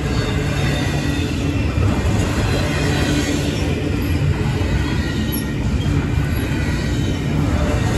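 Double-stack container train's well cars rolling past: a steady, loud rumble of steel wheels on rail.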